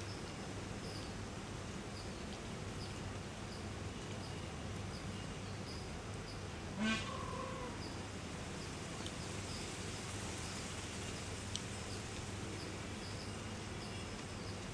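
Rural outdoor ambience: short high chirps from small wildlife repeat about one to two times a second over a steady low background, with one brief louder call about seven seconds in.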